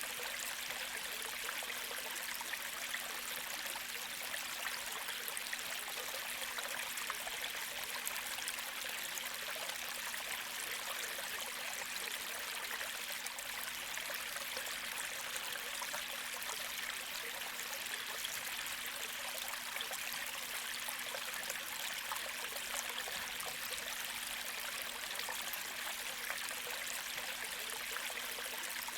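A gentle creek flowing steadily, with a continuous trickling and babbling of shallow water.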